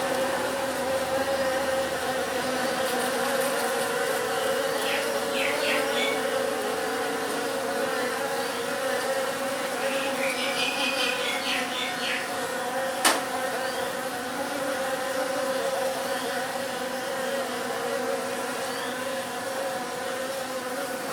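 A swarm of bees buzzing close up: a steady drone held on one pitch, with overtones. Short, higher chirps come through twice, and a single sharp click sounds about halfway through.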